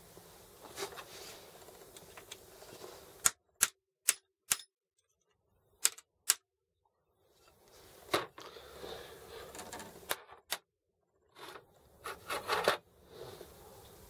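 Sharp metallic clicks and taps from hands and tools working on a Sturmey-Archer S5C hub: six or so single clicks a few tenths of a second to a second and a half apart, then rustling and scraping handling noise with a few more clicks, loudest near the end.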